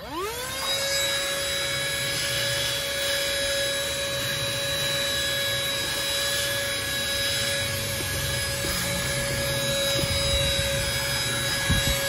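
Farasla cordless handheld car vacuum switched on, its motor whining quickly up to speed and then running steadily with a high whine and rushing suction through the crevice nozzle. There is a short knock near the end.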